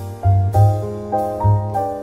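Instrumental music: piano-like keyboard chords over a deep bass line, with the notes struck and fading as the chords change every half second or so.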